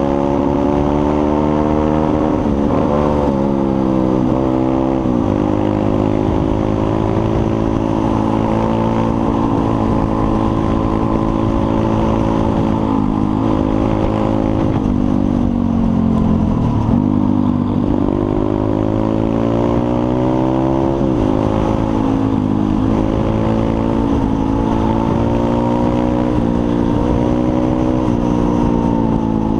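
Pit bike's small single-cylinder four-stroke engine running under way, heard from on the bike. The engine note climbs and falls several times as the rider works the throttle and gears, with sharp drops in pitch at the shifts.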